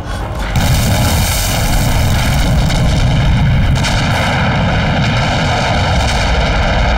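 Explosion-like sound effect: a loud, sustained roar with a heavy low rumble, coming in about half a second in and holding steady.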